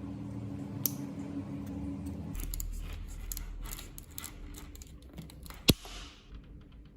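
Metal cable being cut by hand: a run of irregular clicks and metallic snips, with one sharp snap a little under six seconds in. A low steady hum sounds for the first couple of seconds.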